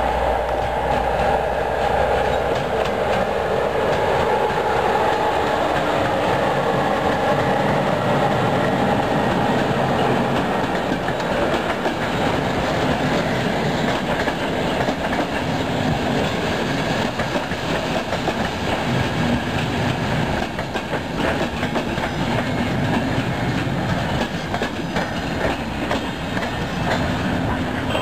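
Passenger train passing close by, a long line of coaches rolling past with the wheels clattering over the rail joints.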